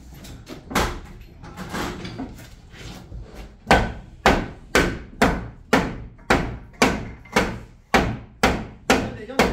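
Hammer blows: a few scattered knocks, then from about four seconds in a steady run of about a dozen sharp strikes, roughly two a second.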